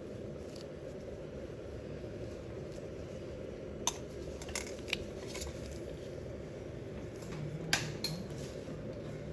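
A steady low hum with a few light, sharp clicks of small metal extraction tools, several about four to five seconds in and a louder pair near eight seconds.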